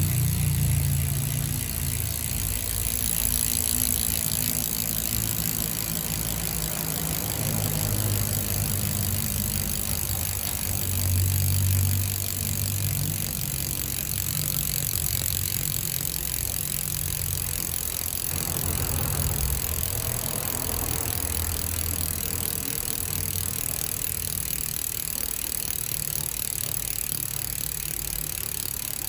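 Odessy 'jangkrik' freehub on a road-bike rear wheel clicking rapidly and continuously as the wheel freewheels, a fast buzzing ratchet of pawls, with a low rumble underneath.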